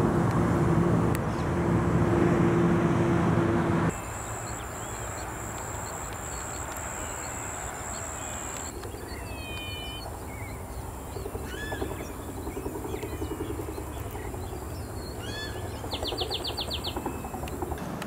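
A loud, steady engine hum, like a passing motor vehicle, cuts off abruptly about four seconds in. After that a steady low rumble continues under several birds calling: short chirps, downward-gliding whistles, and a fast trill near the end.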